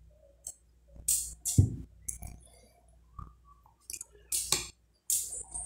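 Tableware sounds of a meal: a thud about one and a half seconds in, then short clicks and scrapes of a metal spoon against a glass bowl, over chewing.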